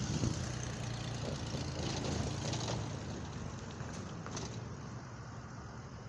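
A motor vehicle's engine running nearby, a low hum over steady outdoor rumble that fades away after about three seconds.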